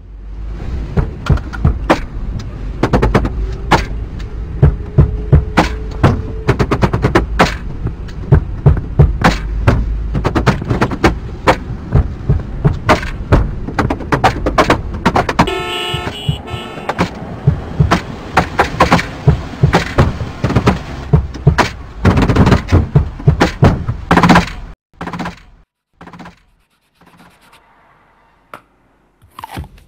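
Found-object percussion music: fast, rhythmic bangs, knocks and taps layered over one another, with a brief pitched sound of several tones about halfway through. The dense playing breaks off after about 25 seconds, leaving a few scattered hits.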